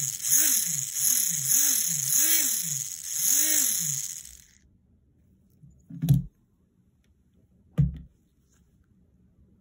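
Tiny electric motor and gears of a 1:43-scale RC car, held in the hand, whining at half throttle. Its pitch rises and falls about five times as the proportional throttle is pulsed, then it cuts off about four seconds in. Two short knocks follow, about six and eight seconds in.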